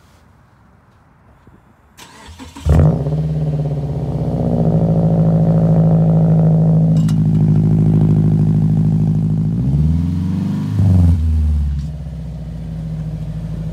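Subaru Outback's boxer engine heard at the exhaust tip, cranked by the starter and catching with a loud flare, then idling fast and steady. A short rev rises and falls about ten seconds in, and it settles to a lower idle.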